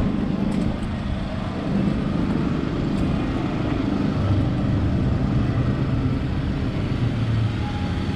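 Street traffic noise: a steady low rumble of vehicles running.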